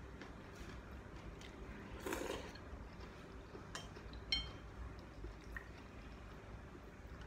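Quiet eating sounds: a short slurp of noodles and greens about two seconds in, small clicks of chopsticks, and a utensil clinking once against the ceramic bowl, a sharp clink with a brief ring, about four seconds in.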